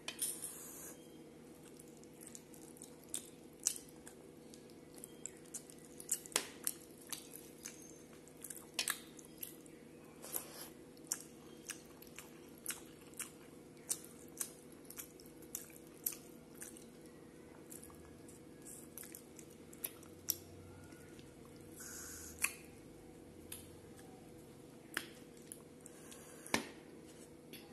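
A person eating close to the microphone: chewing with frequent short wet mouth clicks and smacks, a few a second, over a faint steady hum.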